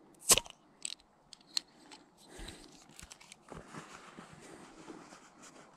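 A few sharp clicks and light taps close by, the loudest about a third of a second in, then a faint steady outdoor hiss with a few small ticks over the second half.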